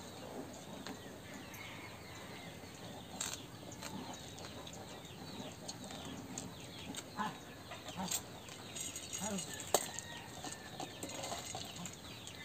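Faint chirping and clucking of chickens and small birds: many short, falling chirps, with a few sharp clicks.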